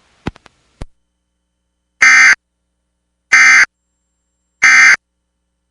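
Emergency Alert System End-of-Message (EOM) tones: three identical short buzzy digital data bursts about 1.3 seconds apart, the SAME code that marks the end of the alert broadcast. Two short clicks come in the first second.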